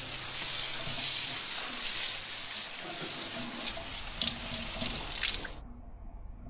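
A shower running: a steady spray of water that cuts off suddenly about five and a half seconds in.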